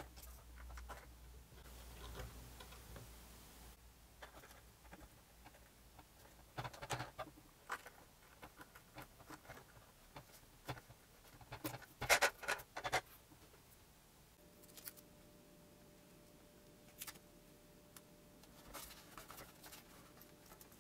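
Faint handling noise of foam wheels being pushed onto the wire landing-gear axles of a foamboard model plane: light clicks, taps and rubbing, with sharper clicks bunched in two short clusters around the middle.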